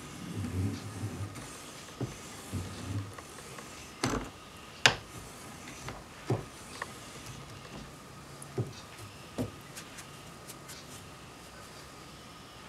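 A small steel blade being worked by hand on a sharpening stone: irregular clicks and taps of steel against the stone, with one louder knock about five seconds in. A faint steady high whine runs underneath.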